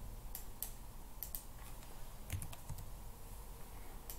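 Scattered clicks of a computer keyboard and mouse, about seven short sharp clicks at irregular intervals, over a faint low hum.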